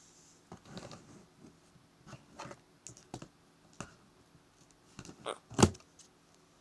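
Scissors cutting and scraping at a parcel's packaging: a run of small irregular clicks and scratches, with one louder knock about five and a half seconds in.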